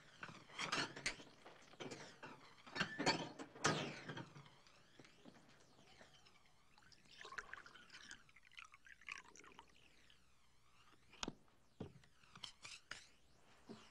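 Food being handled: short crackling rustles of a paper package in the first few seconds, then a quieter stretch with a few sharp clicks and knocks near the end.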